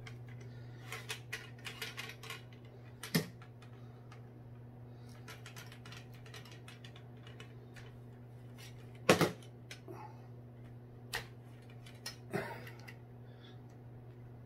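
Telescopic surf-casting rod being collapsed by hand: its sections slide and click into one another, a run of light clicks in the first two seconds, then separate sharper knocks, the loudest about nine seconds in. A steady low hum runs underneath.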